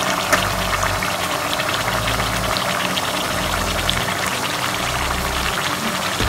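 Masala-marinated chicken frying in hot coconut oil in a kadai: a steady sizzle dotted with fine crackles and pops as the wet marinade hits the oil.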